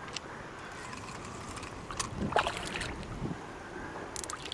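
Water lapping and sloshing against the side of a small anchored boat, with a low steady rumble of wind and a few faint clicks and knocks.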